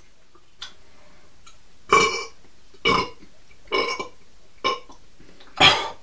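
Men belching: five short, loud burps about a second apart, the last the loudest, after gulps of canned fizzy drinks.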